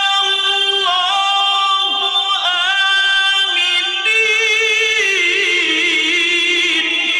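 An unaccompanied voice chanting melodically in long held notes that step up and down with a slight waver, in the style of a qari's Quran recitation.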